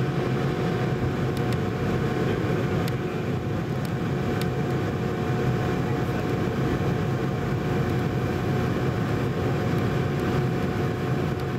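Boeing 717 cabin noise heard at a window seat right beside its rear-mounted Rolls-Royce BR715 turbofan: a steady low rumble with a constant whine from the engine.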